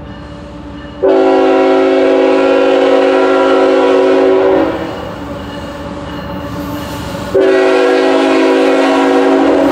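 Freight locomotive's multi-note air horn sounding two long blasts, about a second in and again near the end, over the low rumble of the approaching diesel locomotives. The blasts are the train signalling for the grade crossing ahead.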